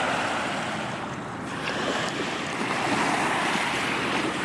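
Small river waves washing in steadily, with wind noise on the microphone: an even rushing hiss.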